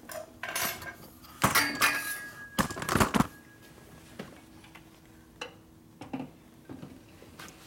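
Hard plastic knocks and clatter of a motorcycle battery being handled and set into its battery box by hand: a few sharp knocks in the first three seconds or so, then a few light ticks.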